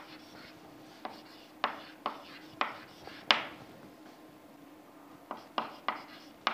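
Chalk tapping and scratching against a chalkboard as words are written: irregular sharp taps, the loudest about three seconds in, a short pause, then a quick run of taps near the end. A faint steady hum runs underneath.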